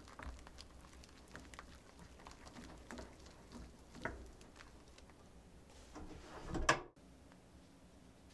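Wire whisk stirring a thickening flour-and-milk paste (tangzhong) in a metal saucepan: irregular clicks and scrapes of the wires against the pan with soft wet stirring. The stirring builds to its loudest stroke, then stops abruptly about seven seconds in.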